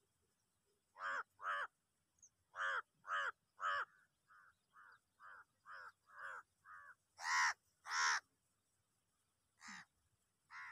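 Crows cawing: a run of about fifteen short, harsh caws, roughly two a second, some faint and some loud, the loudest two a little past the middle.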